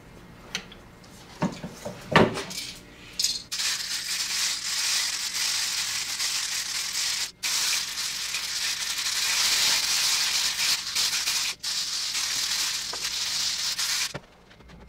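A two-part DuraBlue aerosol can being shaken hard by hand, its contents rattling fast and continuously, with two short breaks in the shaking; it opens with a few separate knocks. This is the first shaking of the can, before its catalyst is released.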